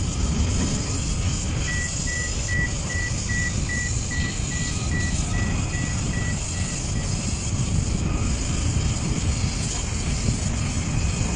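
Steady low rumble of port cargo-handling machinery as a crane works a coal grab over a bulk carrier. A high-pitched warning beeper repeats about two and a half times a second from about two seconds in until about seven seconds in.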